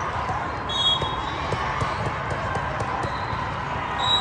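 Steady din of a large hall full of volleyball courts: crowd chatter with scattered sharp smacks of volleyballs being hit and bounced.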